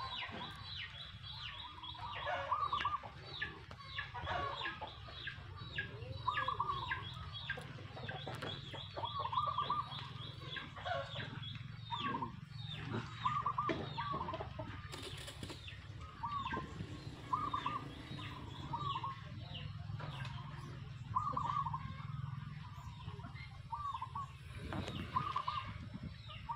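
Birds calling: a rapid series of high chirps that fall in pitch, with shorter, lower calls repeating every second or so, over a steady low hum.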